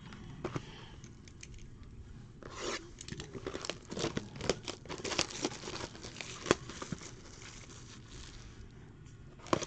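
Plastic shrink-wrap being torn and crinkled off a sealed trading card box: a run of crackles and tears through the middle few seconds, with quieter handling of the box before and after.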